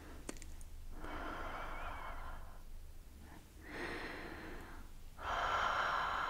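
Three long, close-up breaths blown out onto the camera lens to fog it; the third is the loudest.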